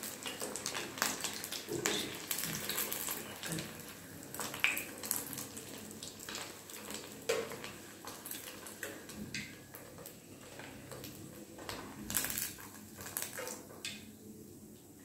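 Curd rice fritters deep-frying in hot oil in a steel pan: a steady crackling sizzle, with short clicks and clinks of a steel ladle against the pan as the fritters are lifted out. The sizzle dies down near the end as the pan empties.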